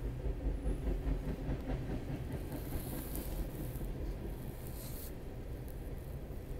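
Train running by: a steady low rumble, with a stretch of hissing from about two and a half to five seconds in.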